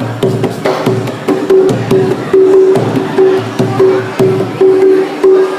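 Live Indonesian percussion music: hand-played drums strike a steady rhythm with a pitched note repeated over and over above them.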